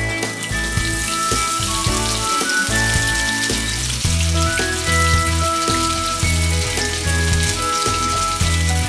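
Zucchini fritters sizzling as they fry in shallow hot oil in a cast-iron skillet. Background music plays over it, with a pulsing bass coming in about four seconds in.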